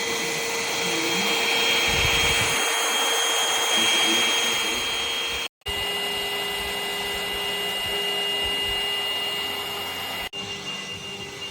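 SUXIANGVAC cordless stick vacuum running with a steady motor whine and airflow rush. The sound cuts off abruptly twice, at about five and a half seconds and just after ten seconds, and comes back each time at a slightly different pitch.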